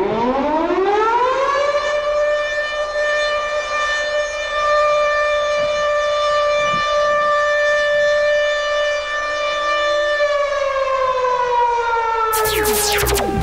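Siren wail that rises in pitch, holds one long steady tone, then slowly falls. Near the end, fast sweeping synth sounds and heavy bass of electronic dance music cut in.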